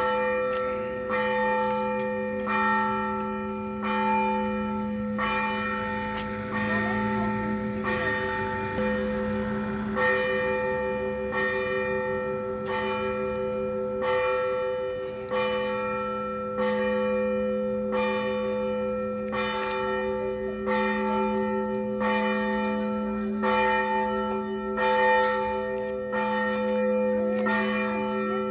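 Russian Orthodox church bells ringing for a service. Smaller bells are struck in a repeating rhythm, about one to two strikes a second, over the lasting hum of the larger bells.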